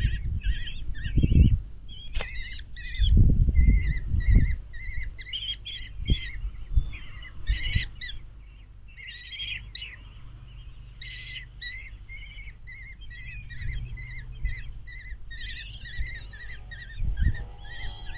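Common kestrel chicks giving a steady run of short, repeated begging calls. A few low thumps come in the first few seconds and again near the end, the first ones the loudest sounds.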